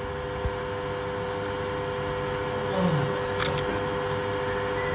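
A steady machine hum with two clear steady tones, and a couple of faint clicks: one about half a second in, another about three and a half seconds in.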